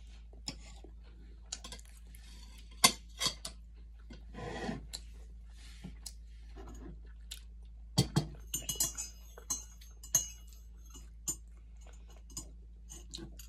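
Metal knife and fork clinking and scraping against a ceramic plate in scattered, irregular strikes, with quiet chewing between them. The sharpest clinks come a few seconds in and about eight seconds in, followed by a short run of ringing clinks.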